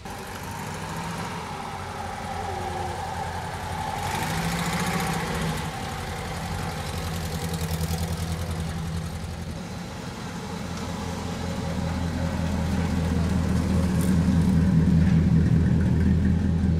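Vehicle engines running slowly and steadily. Over the last five seconds the loudest is a Pontiac Bonneville's V8, idling with a steady low note that grows louder as the car moves off.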